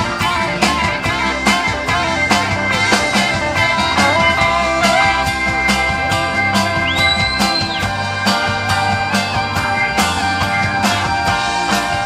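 Live rock band playing an instrumental passage: drum kit keeping a steady beat under electric bass, electric guitar and saxophone, with long held notes coming in about halfway.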